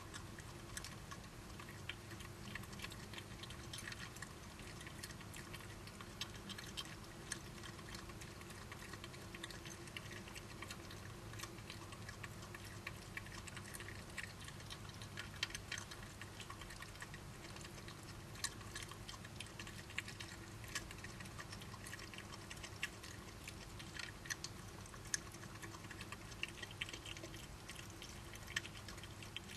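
Faint, irregular clicks and crunches of badgers chewing food, scattered unevenly, over a steady low hum.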